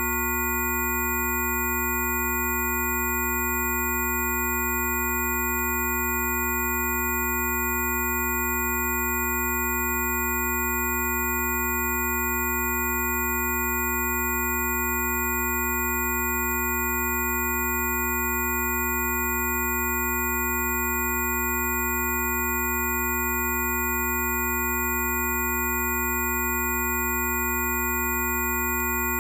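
Several steady pure electronic tones sound together, from a low hum up to high whistles, held without change: Rife frequency tones.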